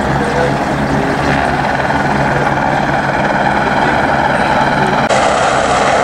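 Steady engine drone over wind and rushing water from a pontoon boat under way on the river. About five seconds in it cuts abruptly to a steady helicopter engine and rotor drone.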